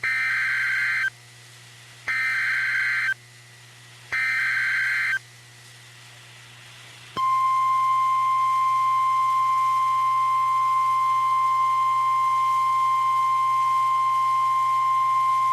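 NOAA Weather Radio emergency alert signal. Three bursts of SAME header data tones, each about a second long and two seconds apart, followed about seven seconds in by the steady 1050 Hz warning alarm tone. Together they announce the start of a new warning broadcast.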